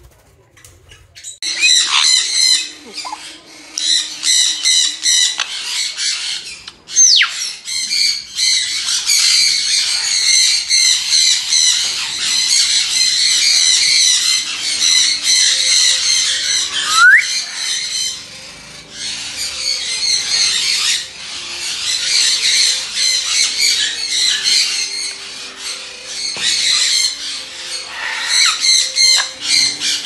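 Grey parrots screeching and squawking together in a loud, continuous chorus that starts suddenly a moment in. It is broken by two sharp whistles, one sliding down in pitch and a later one sliding up.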